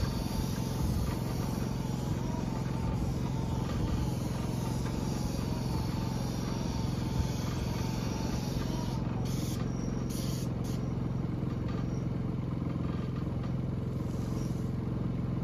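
Small gasoline engine running steadily at a constant speed, powering the pump that feeds the spray hose.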